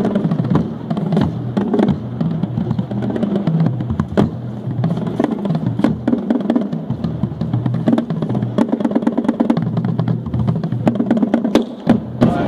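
A five-drum marching bass line of tuned Dynasty bass drums playing a fast split bassline, the drums sounding different low pitches in turn.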